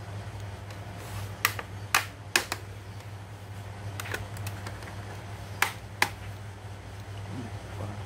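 Plastic snap-fit clips of an Asus X441BA laptop case clicking as the case is pried apart by hand: six sharp clicks in three small groups, over a steady low hum.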